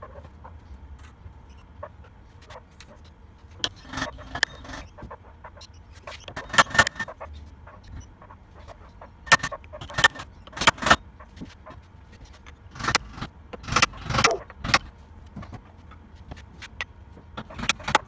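A hammer striking a wooden block held against a cylinder mower's drive sprocket, tapping the tight sprocket onto its keyed shaft. Sharp knocks come in clusters of a few blows every few seconds, with light metallic clinks between them. The sprocket won't slide on freely, which the owner puts down to an old Woodruff key.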